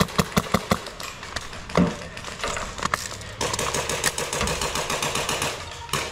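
Airsoft rifle firing: a run of rapid shots, a thud about two seconds in, then a faster, denser stream of shots from about three and a half seconds in, with a brief break near the end.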